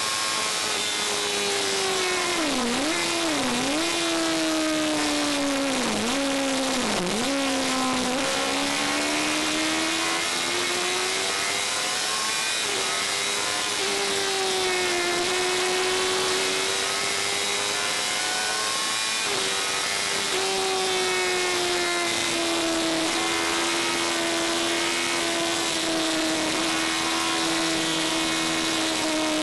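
In-car sound of a Fury racing car's engine running hard on track, its pitch dropping sharply and recovering four times in the first eight seconds, then climbing and holding high with slow sags. A steady rush of wind and road noise lies under it.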